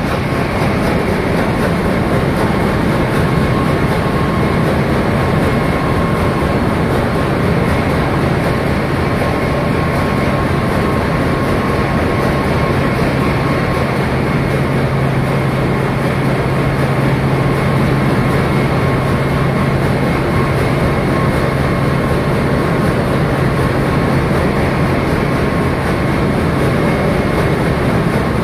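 Loud, steady roar of running diesel machinery in a large container ship's engine room, with a low hum and a thin higher whine held through it.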